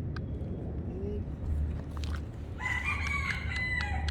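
A rooster crowing once, a call of about a second and a half starting past the middle, over a steady low rumble.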